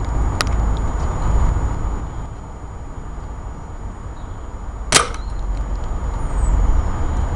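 A single sharp shot about five seconds in, as a yellow zeroing-stick range marker is hit and knocked off its stick, with a smaller click near the start, over a steady low rumble.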